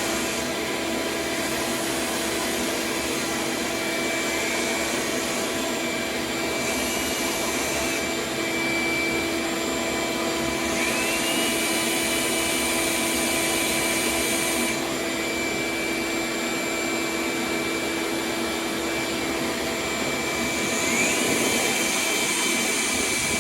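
Vacuum running steadily while the cured resin fill coat on a surfboard repair is sanded with 120 grit. A high whine rises in pitch about halfway through and again near the end.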